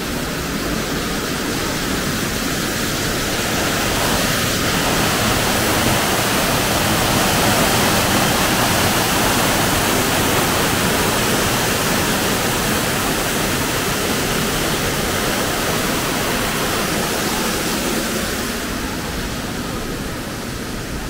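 Rushing water of a waterfall: a steady, even rush that grows a little louder toward the middle and eases off near the end.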